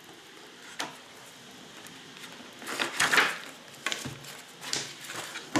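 Crinkling of a thin polythene wrapper being pulled off a leather ring-binder planner: a single click a little under a second in, then a loud rustle about three seconds in and a few shorter crinkles after.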